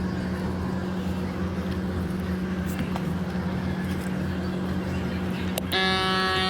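A vehicle engine idling with a steady low hum and a few faint clicks. Near the end a sustained buzzing tone with many overtones starts suddenly and holds.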